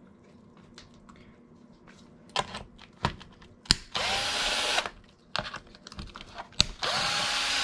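Cordless drill-driver backing screws out of a buggy's aluminium chassis plate in two short runs of under a second each, its motor whine rising as it spins up and then holding steady. A sharp click comes just before each run, with light ticks of small parts in between.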